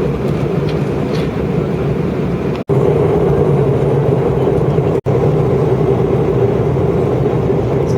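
Steady airliner cabin noise in flight: the engines' drone and the rush of air past the fuselage, with a constant hum. It cuts out for an instant twice, and is slightly louder after the first break.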